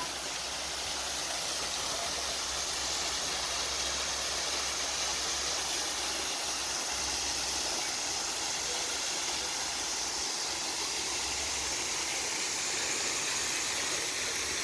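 Steady rushing of a waterfall's falling water, an even hiss without breaks.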